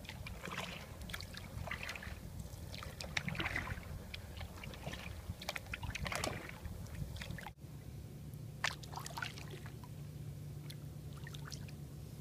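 Canoe paddle strokes on calm water: irregular small splashes and drips from the paddle blade, with a brief break in the sound about halfway through.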